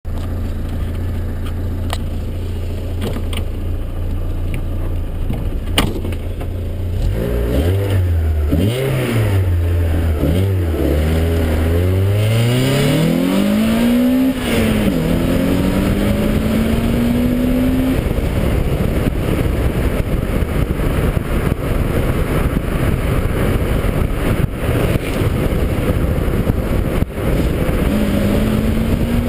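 Car engine idling, with a single knock about six seconds in, then revved a few times and pulling away, its pitch rising through the gears with a drop at a gear change. After that, wind and tyre noise at speed dominate, with the engine faint underneath.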